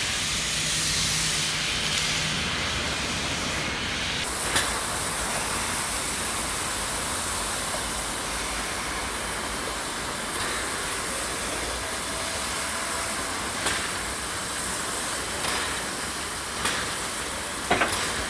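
Standing steam locomotive of the Harz narrow-gauge railway, 99 7235-7, a metre-gauge 2-10-2 tank engine, hissing steadily as it vents steam. The hiss grows brighter about four seconds in, and a few short metallic knocks come in the second half, most of them near the end.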